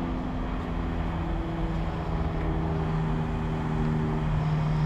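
A vehicle engine idling steadily, its low hum holding an even pitch.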